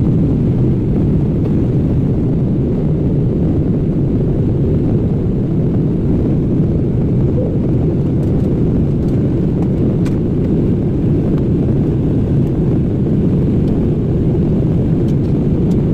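Inside an airliner cabin in flight: the steady, low rumble of the engines and the airflow past the fuselage.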